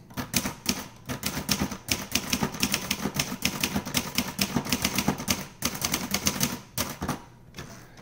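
Olivetti Lettera 82 portable typewriter typed at a brisk pace: a quick run of sharp key and typebar clacks, several a second, thinning to a few strokes near the end.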